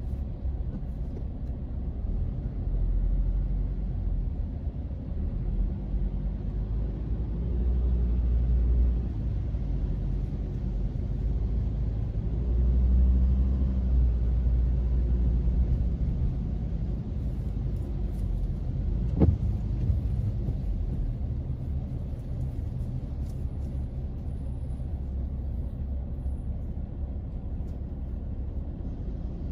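Car engine and tyres on a wet road rumbling low inside the cabin, swelling and easing a few times as the car moves in slow city traffic. One sharp click sounds about two-thirds of the way through.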